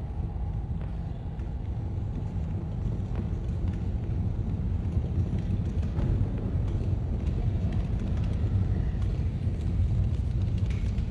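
Deep, steady rumble that slowly builds in loudness, the film's sound-design ambience for the catacomb tunnel, with a few faint knocks.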